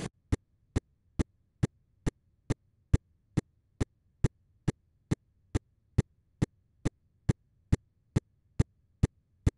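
A steady ticking beat: sharp, evenly spaced clicks a little over two a second, with dead silence between them.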